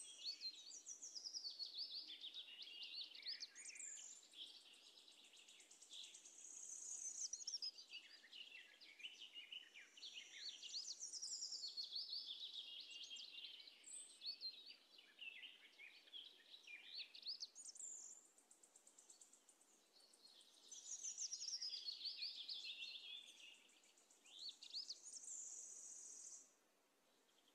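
Faint bird song: high chirps, trills and quick sweeping phrases, coming in bouts of a few seconds with short lulls between them.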